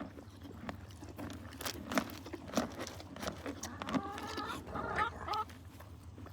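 Close-up crunching and chewing of a farm animal grinding its feed, irregular crunches throughout. A short wavering animal call comes in about four seconds in.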